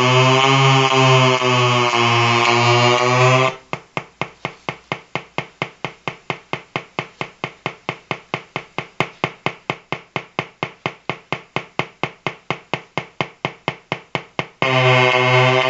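Interference noise from a battery-powered colour-changing LED lamp: a loud, pulsing buzz that switches about three and a half seconds in to a rapid ticking at about four ticks a second, then returns to the buzz near the end as the LED's colour-change circuit cycles.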